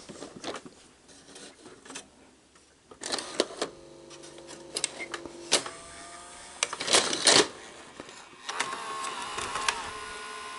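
Sony SLV-R5UC S-VHS VCR's tape-loading mechanism running with the case open: clicking and clacking gears and cam, with a motor whine from about three and a half seconds in and a steady motor hum from about eight and a half seconds in. The loading cycle does not complete, which the owner takes for gears knocked out of timing.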